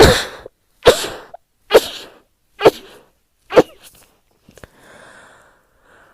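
A woman sneezing five times in quick succession, each one a sharp, loud burst, about one a second.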